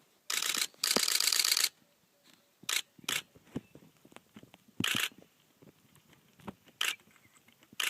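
Camera shutters firing: two quick bursts of continuous shooting in the first couple of seconds, then a few single shots spaced a second or two apart.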